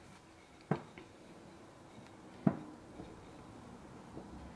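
Wooden rolling pin rolling out thin rice-flour dough on a plastic-wrapped plate, giving two sharp knocks, about a second in and near the middle, and a couple of fainter taps.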